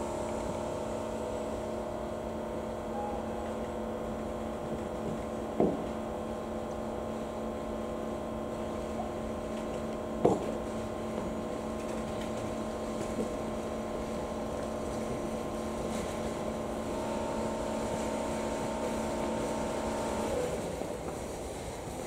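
DE10 diesel locomotive engine running with a steady drone of several held tones, which cuts off abruptly about 20 seconds in. Two sharp knocks or clanks come at about six and ten seconds in.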